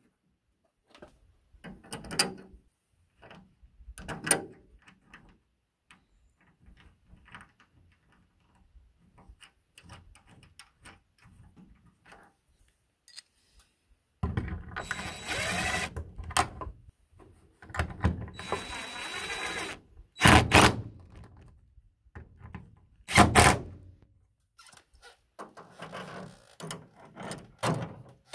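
Mirror-mount hardware being fitted: light clinks and taps of metal parts, then a cordless drill-driver running in two bursts of about two seconds each, two loud clanks, and a ratchet wrench clicking near the end.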